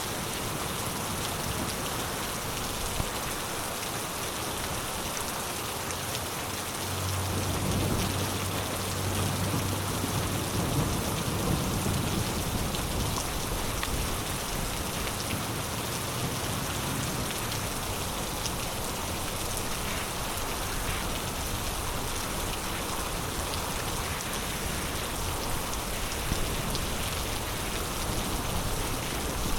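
Heavy rain falling steadily on surfaces. About seven seconds in, a low rumble of thunder comes in and lasts several seconds.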